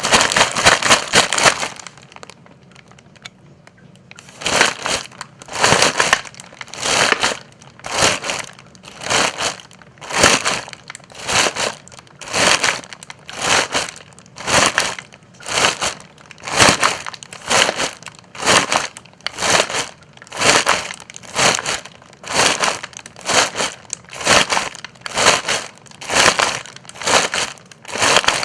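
Footsteps crunching through dry leaves on a forest floor. A dense run of crunching at the start stops after about a second and a half, and after a pause of a couple of seconds slow, evenly spaced steps follow at about one a second.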